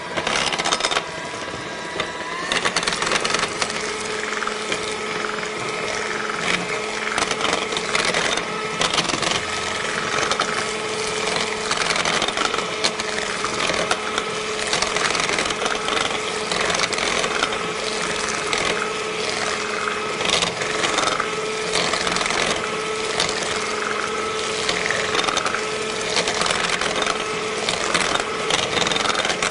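Electric hand mixer running steadily as its beaters whip thick cake batter in a bowl, with frequent light clicks of the beaters against the bowl. Its pitch changes about two seconds in.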